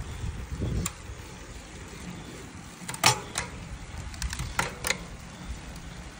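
Wind and road noise on a moving road bicycle, with a few sharp clicks and rattles, the loudest about three seconds in.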